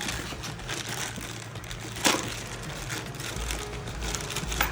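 Packaging of a motorcycle lock kit being opened and handled by hand: rustling and crinkling, with one sharp crack about two seconds in.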